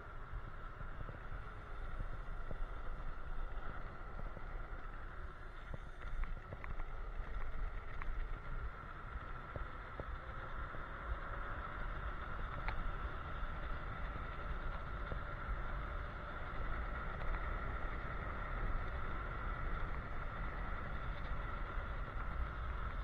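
Electric scooter ridden at speed on asphalt: wind buffeting the microphone and tyre rumble, over a steady high whine from the electric motor.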